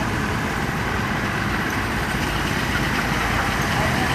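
Small gasoline engine of a 12-inch-gauge ride-on miniature locomotive running steadily as it pulls a loaded train, growing a little louder near the end as it comes closer.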